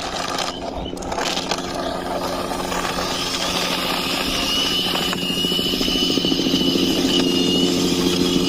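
Toy police helicopter giving off a steady buzzing, motor-like drone with a thin high whine above it, growing slowly louder.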